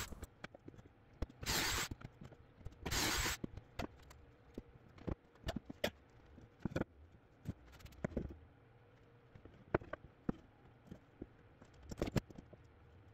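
Cordless drill boring pocket holes in a 2x4 held in a pocket-hole jig: two short bursts about a second apart. Then scattered knocks and clicks as wood pieces and tools are handled.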